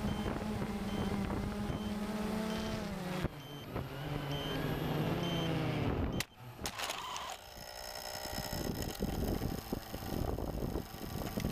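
Quadcopter motors and propellers humming, their pitch shifting up and down. The hum breaks off suddenly with a sharp click about six seconds in, and uneven rustling and wind noise follow.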